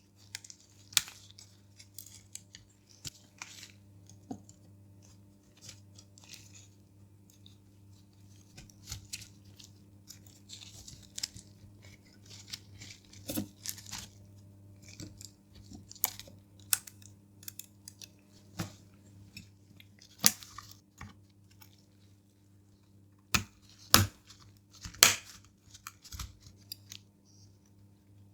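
Scattered small clicks, taps and rustles of hands working on the parts of an open Nintendo DSi XL handheld, with the sharpest clicks about twenty and twenty-five seconds in. A faint steady hum runs underneath.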